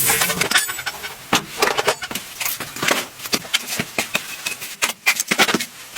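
Irregular light clicks, taps and clinks of small hard objects being handled, several a second.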